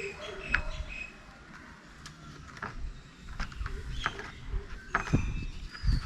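Plastic parts of a bio-compost bin being handled and fitted together, with scattered clicks, knocks and short squeaks, and a few heavier thumps near the end.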